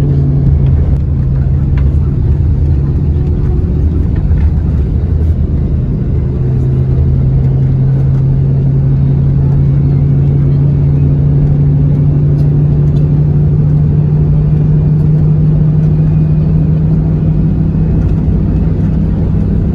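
Inside the cabin of a moving intercity coach bus: a steady low engine drone with road rumble while cruising. The drone's pitch settles lower about six seconds in, then slowly creeps back up.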